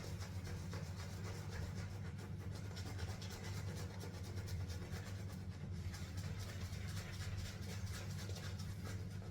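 Badger shaving brush scrubbing soap lather over a face, a steady fast bristly swish with a dense fine crackle. A steady low hum runs underneath.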